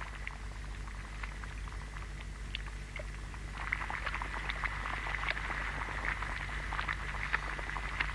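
A large pot of milk heating over an open hearth fire: a steady hiss dotted with many small pops and crackles, getting busier about three and a half seconds in.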